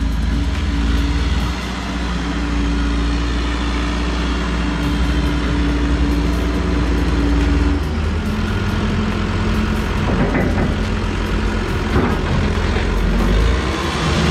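Caterpillar backhoe loader's diesel engine running as the machine drives close by; the engine note steps down about eight seconds in, with a few knocks after that.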